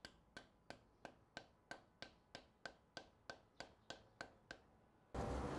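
Rubber mallet tapping a bearing onto the shaft of a helical carbide cutter head: a steady run of light, sharp taps, about three a second, which stops about four and a half seconds in.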